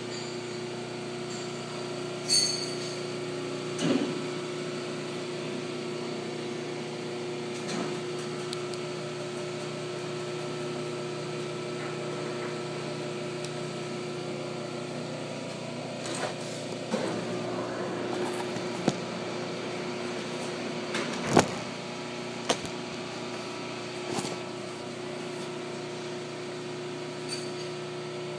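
Steady machine hum with several even tones, with scattered knocks and clicks on top, the sharpest knock about 21 seconds in.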